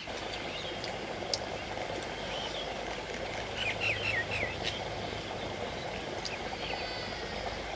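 Outdoor ambience with birds chirping now and then over a steady background noise, including a quick run of several short chirps about halfway through.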